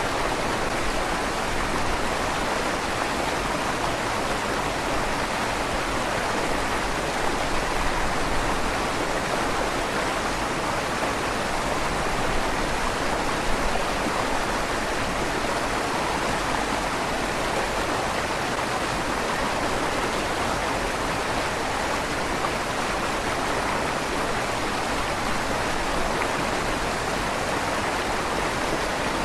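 River water flowing steadily through a stone tunnel under a bridge, a continuous rushing with a slight echo off the stone.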